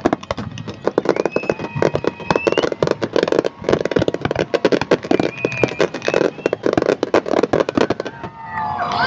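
Fireworks display: a dense, rapid barrage of bangs and crackling from aerial shells bursting, many reports a second.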